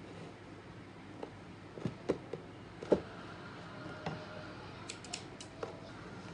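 Cardboard cereal box handled on a table: a scattering of light knocks and taps as it is turned and shifted, with a few sharp clicks about five seconds in.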